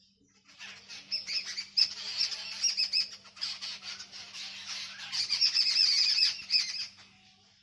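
Several birds chirping busily, with many short overlapping chirps. They start about half a second in and die away near the end.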